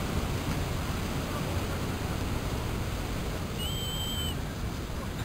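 Steady rush of surf and wind buffeting the microphone. About three and a half seconds in, a short, high, steady whistle sounds for under a second.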